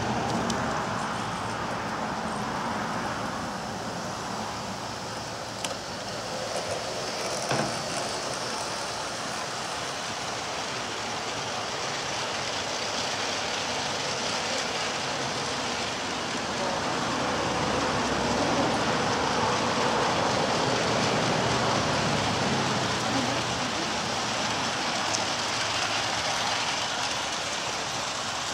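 G-scale model freight train running on an outdoor garden railway: a steady rolling clatter of many cars' wheels on the track, a little louder about two-thirds of the way through, with a couple of sharp clicks around six and seven seconds in.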